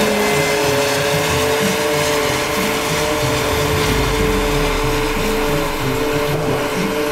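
New Holland self-propelled forage harvester running under load as it picks up and chops a windrow of wilted grass for haylage, blowing it into a trailer. The sound is a loud, steady machine noise with a constant mid-pitched whine.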